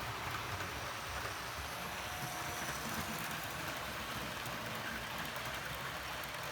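Model FS D443 diesel locomotives running on track: a steady hiss and low rumble of small electric motors and wheels on rails, with faint ticks.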